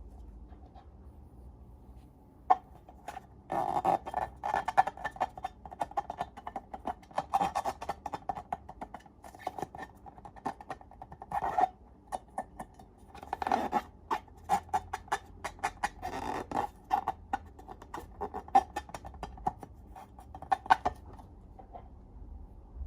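Slime being squished and worked by hand, with bunches of quick sticky clicks and crackles and quieter pauses between.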